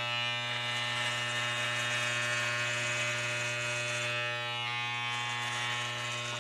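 Electric hair clippers buzzing steadily as they are run over the head, cutting hair. The buzz holds one low pitch with many overtones throughout.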